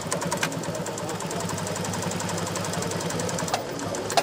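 JUKI LU-2810 direct-drive, unison-feed lockstitch sewing machine with edge cutter running at a steady speed, sewing while its knife trims the material edge: a fast, even run of needle strokes over a motor hum. A sharp click comes at the start and another near the end.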